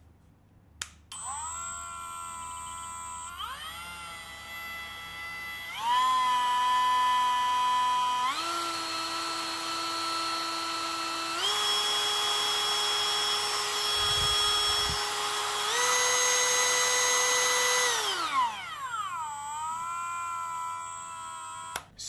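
Parkside Performance PPFBSA 12 A1 brushless rotary tool switched on with a click and running with no bit or load, its high whine stepping up in pitch five times as the membrane speed button is pressed through its settings (5,000 to 32,000 rpm). Near the end the whine glides back down to a low speed and cuts off.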